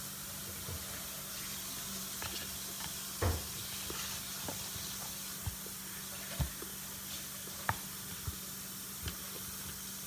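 Kitchen tap running steadily as hands are washed, with a few short knocks and clicks.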